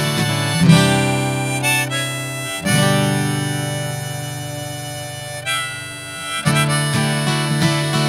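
Harmonica in a neck rack playing long held chords over an acoustic guitar, the second chord slowly fading. Rhythmic acoustic guitar strumming comes back in near the end.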